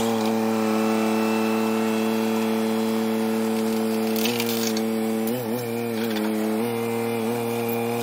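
Compact tractor engine running steadily at high revs while its backhoe digs into a compost pile. Its pitch sags and wobbles briefly about four seconds in and again around five to six and a half seconds, as the backhoe hydraulics load the engine.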